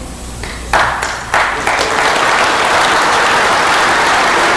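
Audience applauding, starting with a few claps under a second in and swelling into steady, full applause.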